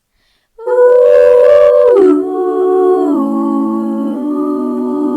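A loud, drawn-out howling voice that starts about half a second in, holds one pitch, then drops lower in two steps and holds there.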